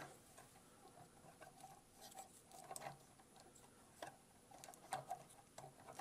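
Faint, scattered small clicks and taps of an action figure's plastic parts being handled as the wing pieces are pushed back into its back.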